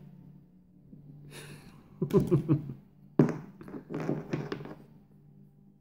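Multimeter test leads being handled: a few taps and clicks of the probes and cables, the sharpest about three seconds in, over a faint steady low hum.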